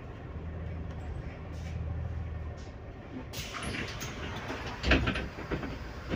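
Inside a Solaris Urbino 18 IV Hybrid articulated bus pulling in at a stop: a low steady drivetrain hum, then about three seconds in a pneumatic hiss, with two heavy thuds near the end as the doors work.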